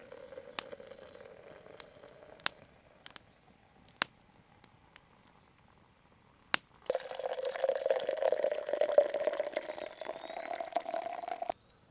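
Liquid pouring: a faint pour at the start, then about seven seconds in a louder pour of coffee from a coffee press into a stainless steel mug. The louder pour rises slightly in pitch as the mug fills, then stops suddenly. Sharp crackles from a wood campfire come in between.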